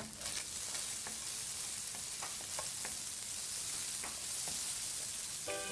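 Sliced sausage franks sizzling in hot oil in a non-stick frying pan, with a steady hiss, while a spatula stirs them and scrapes and taps against the pan now and then.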